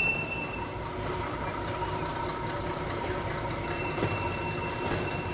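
Diesel locomotive engine running steadily in the distance: a low, even rumble with a thin high whine over it.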